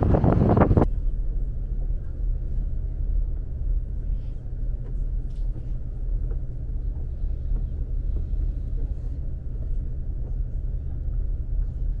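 Wind buffeting the microphone, cut off abruptly about a second in, then a steady low engine drone.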